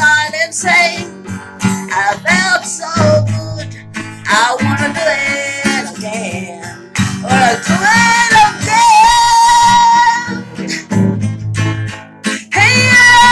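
A woman singing to her own strummed acoustic guitar. About eight seconds in she holds one long note.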